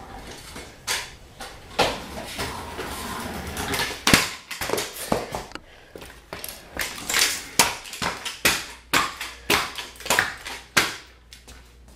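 A rapid, irregular series of knocks, bangs and clatters, a few single ones at first, then a dense run in the second half that stops shortly before the end.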